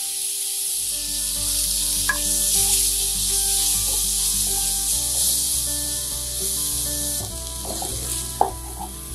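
Ginger-garlic paste and fried onions sizzling in ghee in a non-stick kadai, stirred and scraped around the pan with a wooden spatula, with a few light knocks of the spatula near the end.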